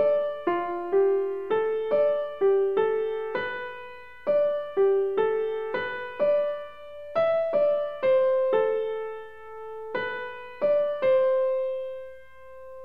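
Background piano music: a slow melody of single notes, each struck and fading, ending on a held note.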